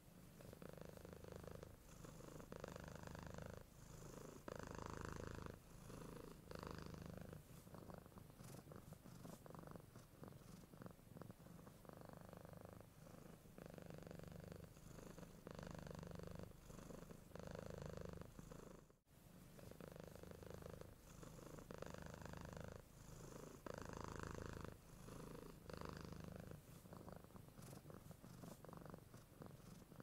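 A domestic cat purring steadily and quietly, in swells every second or two. The purr cuts out briefly about two-thirds of the way through.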